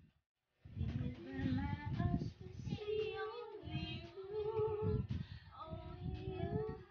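A woman singing a melody, holding several long notes, starting just after a brief pause.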